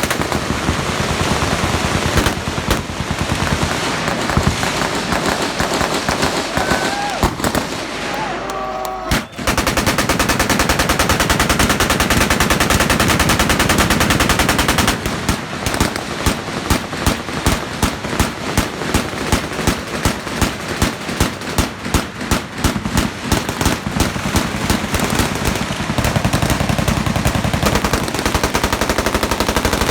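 Many machine guns firing at once along a range firing line: a continuous clatter of overlapping automatic fire. About halfway through, a slower, evenly spaced beat of separate loud shots, about two or three a second, stands out above the rest for several seconds.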